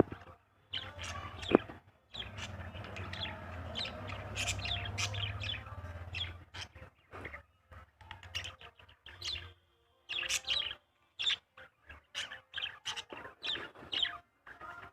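Small birds chirping and tweeting in rapid, repeated short calls. A low steady hum sits under the calls for the first half.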